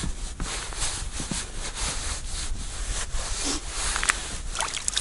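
Rustling and handling noise from a padded winter suit and ice-fishing gear close to the microphone, a rough scratchy noise in short uneven strokes, with a few small sharp clicks about four seconds in.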